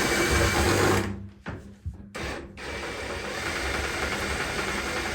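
Small electric motor running with a steady hum and whirr, cutting out briefly about a second in with a click, then running steadily again.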